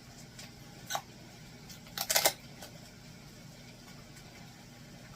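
Egg cracker gadget clicking as an egg is cracked into a bowl: one click about a second in, then a quick cluster of sharper clacks about two seconds in.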